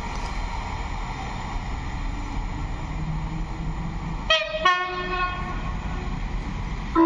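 Railway horn sounding two short blasts about four seconds in, over a steady low rumble; a louder, multi-tone horn blast starts right at the end.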